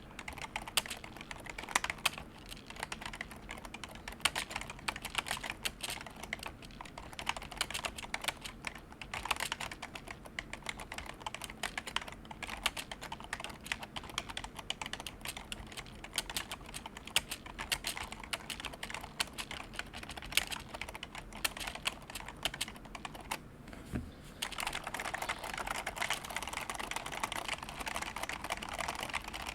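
Typing on a vintage Happy Hacking Keyboard KB#02 with rubber-dome keys: a steady stream of soft key presses. About two-thirds of the way in there is a short pause with a single low knock, and then the typing turns faster and denser.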